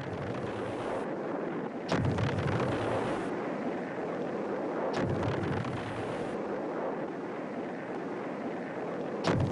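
Aerial bombs exploding: a continuous low rumble broken by three sharper blasts, about two seconds in, about five seconds in and near the end, the last the loudest.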